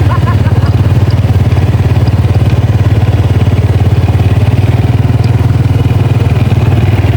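A motor vehicle's engine running steadily with an even, rapid low pulse, heard close up.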